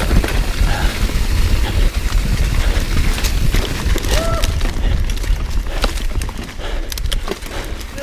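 Mountain bike riding fast down a steep, rocky trail covered in wet leaves: heavy wind rumble on the camera mic, tyres hissing through the leaves, and the bike knocking and rattling over rocks and roots. A brief high tone sounds about four seconds in.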